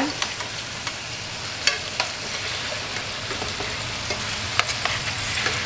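Chicken pieces and Italian hot sausages sizzling steadily as they brown in oil in a stainless steel sauté pan, with a few sharp clicks of metal tongs against the pan as the sausages are turned.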